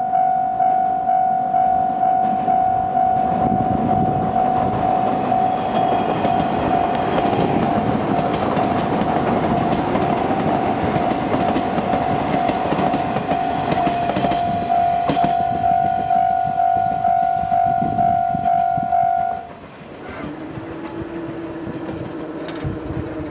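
Japanese level-crossing warning bell ringing in a steady, rhythmic pulse while a 381 series electric limited-express train passes over the crossing, its wheels rumbling and clacking over the rail joints. The bell stops suddenly about three seconds after the train has gone.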